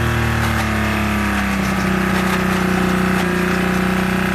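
Car engine held at steady high revs, with scattered clattering knocks in the first half.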